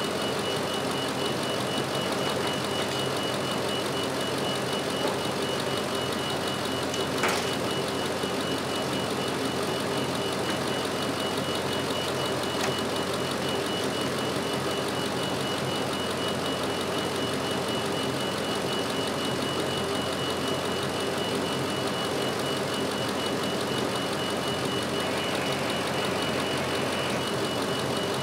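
Pickup truck engine idling steadily, with a thin steady high whine over it and a single sharp click about seven seconds in.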